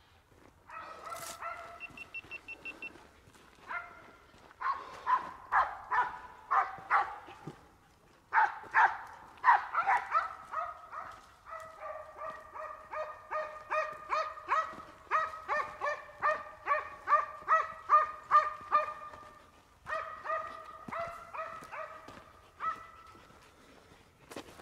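Hunting dogs barking at a wild boar in rapid, repeated series, about three barks a second through the middle stretch. The dogs have cut the boar out of its herd and are driving it.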